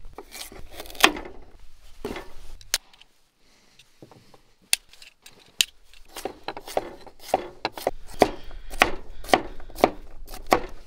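Knife chopping vegetables: a few separate cuts, then a steady run of chops at about three a second through the second half.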